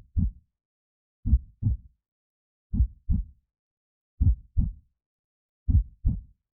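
Slow heartbeat sound effect: a deep lub-dub double thud about every second and a half, with silence between the beats.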